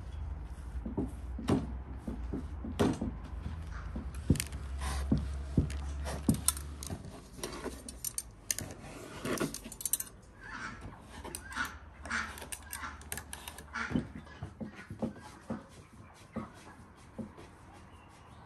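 Hands working soft dough and a knife cutting through it onto a wooden board, in scattered knocks and clicks. A low hum runs under the first half, and chickens call now and then in the background.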